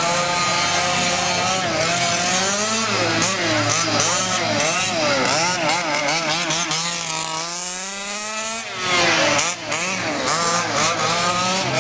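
Small two-stroke gas engine of a 1/5-scale HPI Baja RC truck revving up and down again and again. About seven seconds in it makes one long rising rev, which drops off sharply near nine seconds before the revving picks up again.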